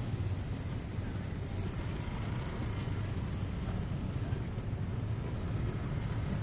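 Motorbike and car engines in slow, packed traffic, idling and creeping along: a steady low rumble.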